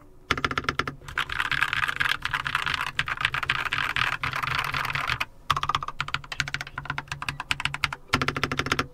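Mechanical keyboard being typed on in fast, continuous runs of keystrokes, with brief breaks about five seconds in and near the end.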